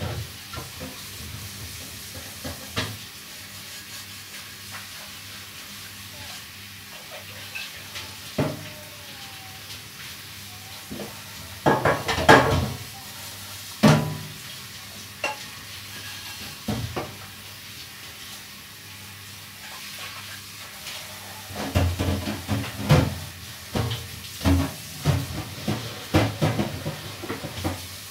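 Food cooking in a pan with a faint steady sizzle, and a utensil stirring and knocking against the pan in scattered clusters of sharp clacks.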